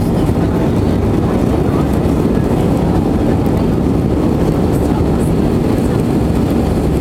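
Airbus A320 climbing after take-off, heard inside the passenger cabin: a steady, low engine and airflow noise.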